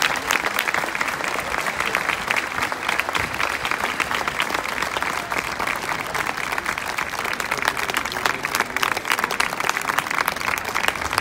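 A large crowd applauding without a break.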